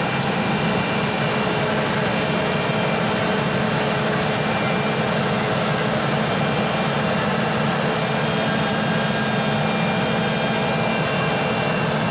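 Heavy construction machine engine running steadily, a constant mechanical drone with a few steady tones and no change in level.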